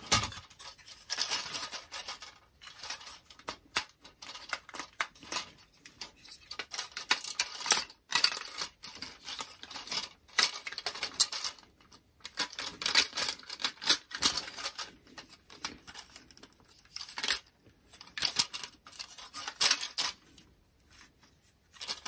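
Hard plastic parts of a Transformers Authentics Optimus Prime action figure clicking and clacking as it is twisted, folded and snapped between modes by hand, in irregular runs of clicks with short pauses.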